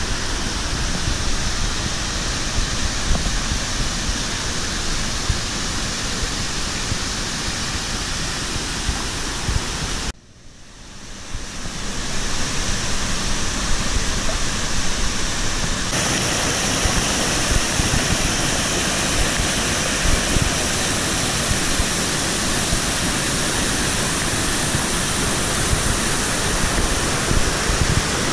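Rushing water of a rocky stream and waterfall: a steady, loud rush of white noise. It drops out suddenly about ten seconds in and fades back up over a couple of seconds.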